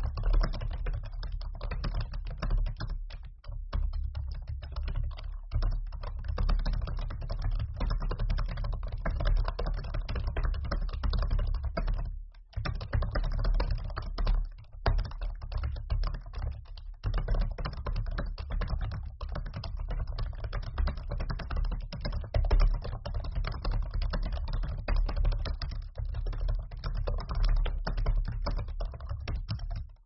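Continuous typing on a laptop keyboard: a dense, unbroken stream of key clicks, with one brief pause about twelve seconds in.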